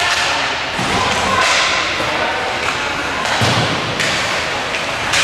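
Ice hockey game play: a steady loud din with a few sharp thuds of play, and faint voices in the background.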